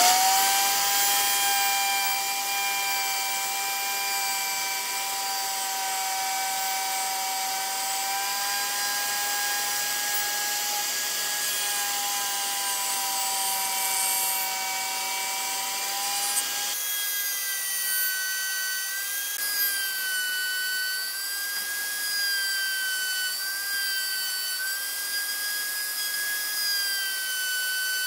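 Electric plunge router running under load as its bit cuts into wooden boards: a steady high-pitched whine that starts abruptly, shifts in pitch about two-thirds of the way through, and then wavers up and down as the bit works through the wood.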